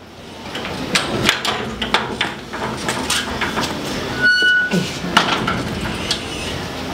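Sheet-metal courtyard gate being opened and pushed shut: a series of metallic clanks and rattles, with a short high squeak about four seconds in.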